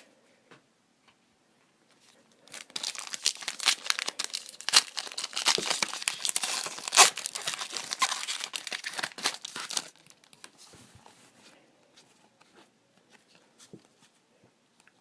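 Foil wrapper of a Donruss hockey card pack being torn open and crinkled. It is a dense crackling that starts a couple of seconds in and lasts about seven seconds, followed by a few faint light ticks.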